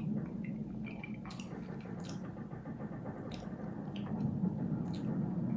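Rum on ice being sipped from a glass: quiet wet slurping and mouth sounds, with a few short, sharp clicks over a low steady hum.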